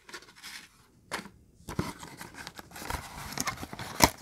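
Clear plastic blister pack handled against cardboard: scratchy scrapes, crinkles and light clicks, with a sharp click just before the end.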